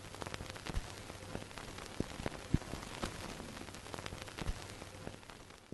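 Static: a steady hiss with irregular clicks and pops, fading out at the end.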